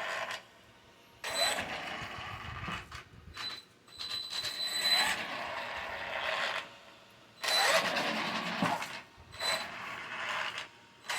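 Traxxas Maxx RC monster truck's drivetrain in four short runs, each with a steady high whine and a grinding noise as it coasts to a stop. The owner is unsure whether the grinding means something is broken.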